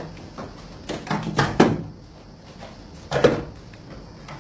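A few sudden knocks or thuds with a short ring after them, a cluster about a second in and another about three seconds in.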